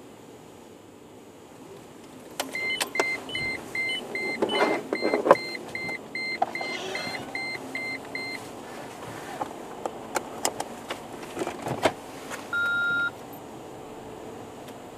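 A run of about fourteen short electronic beeps, some two and a half a second, lasting about six seconds, with clicks and knocks among them. A few seconds later come several more sharp clicks, then one longer beep at a lower pitch.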